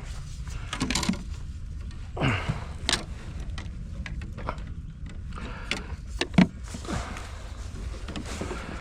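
Handling noise: scattered clicks, taps and knocks, with one sharper knock about six and a half seconds in, over a steady low rumble.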